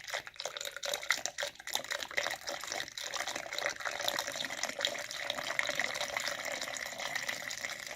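Liquid being poured into an HVAC condensate drain line being flushed after a clog. Splashing unevenly at first, then running steadily, and it cuts off suddenly at the end.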